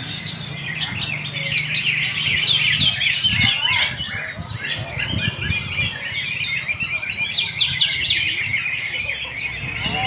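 Many caged canaries singing at once: a dense, continuous chorus of quick overlapping chirps and trills.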